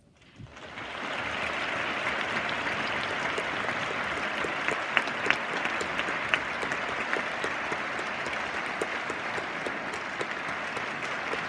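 Audience applause breaking out at the close of a performance, swelling over about a second and then holding steady as a dense patter of many hands clapping, with a few louder single claps near the middle.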